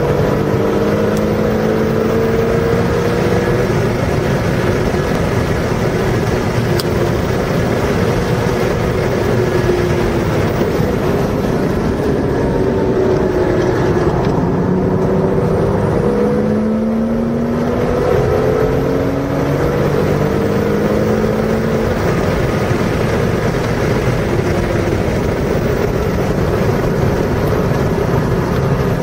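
Car engine running hard on a race track, its pitch climbing again and again as it accelerates through the gears over steady road and wind noise, with a brief let-up midway.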